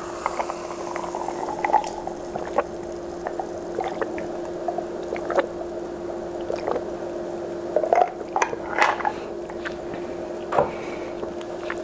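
Fizzy ginger ale sipped and swallowed close to the microphone, with scattered small wet mouth clicks and a louder cluster of them about eight seconds in. A steady hum runs underneath.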